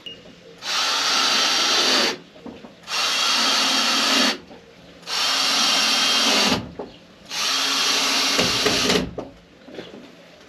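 Power drill driving screws into a plastic shed's top panel: four runs of about a second and a half each, with short pauses between.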